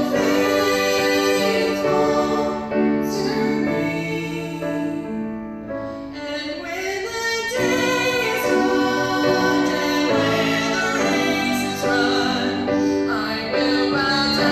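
Two women singing a gospel song together into microphones over musical accompaniment, easing off to a quieter passage about five seconds in before building again.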